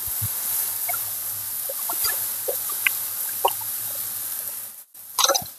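Hot water poured from an electric kettle into a hot wok of stir-fried vegetables: a steady hiss with scattered small pops. It cuts off abruptly near the end, followed by a few brief louder sounds.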